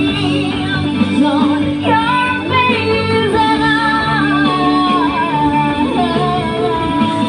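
Music: a voice singing a melody in long held notes with vibrato, over steady instrumental backing.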